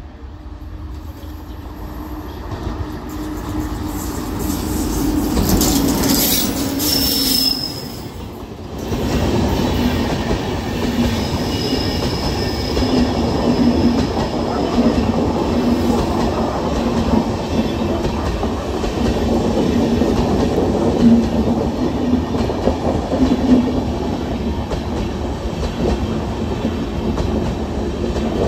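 WAP7 electric locomotive and its passenger coaches passing. The sound builds over the first several seconds, then settles into a steady rumble of coach wheels with a regular clickety-clack and a thin, high wheel squeal now and then.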